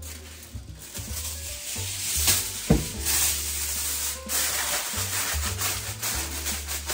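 Aluminium foil crinkling and rustling as it is pressed and crimped around the edges of a baking tray, with a single thump about halfway through, over background music with a steady bass.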